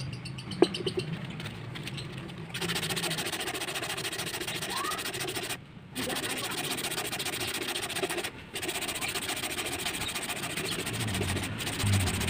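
Sandpaper rubbed by hand over a carved wooden slingshot fork in quick back-and-forth strokes, starting about two and a half seconds in and pausing briefly twice. A sharp tap comes about half a second in.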